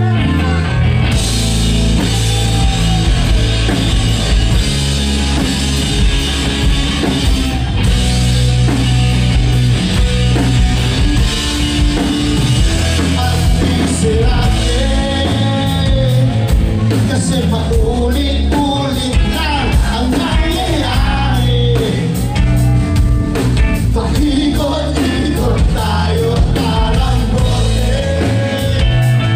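A rock band playing live: electric guitars, bass and drums with a lead vocal, loud and continuous.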